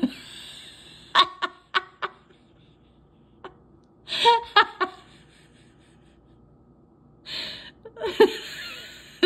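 A woman laughing in several breathy bursts of short, quick giggles, with quiet pauses between them.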